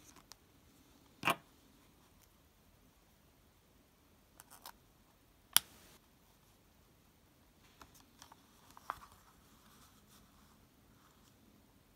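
A few sharp clicks and light taps from an all-metal fountain pen being capped and handled, the loudest click about halfway through, with smaller ticks as it is set down on a paper notebook.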